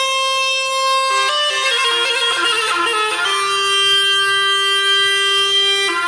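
Bagpipe music: a reedy melody that runs through quick changing notes, then holds one long lower note for about two and a half seconds before moving on near the end.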